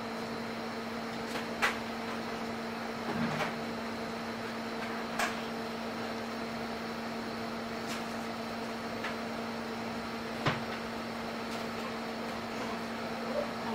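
Steady electrical hum from operating-room equipment, with a few sharp clicks and knocks of metal instruments scattered through it. The loudest click comes about two seconds in.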